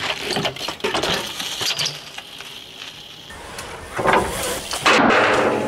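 BMX bike being ridden on street surfaces: clatter, clicks and knocks from the bike and tyres for the first couple of seconds, then louder rough scraping noises near the end.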